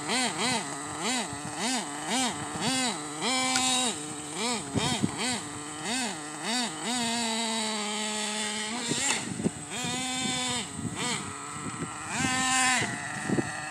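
Ofna RC truck's small nitro engine revving up and falling back in quick throttle blips, about two a second, held at a steady higher speed for a couple of seconds around the middle, then blipped again.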